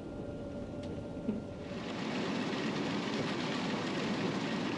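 John Deere combine running steadily while harvesting soybeans. About two seconds in, the noise becomes louder and hissier.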